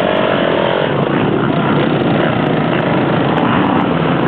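Several motocross bike engines running at once as a line of bikes rolls slowly past, a loud steady drone with engine pitch rising and falling near the start.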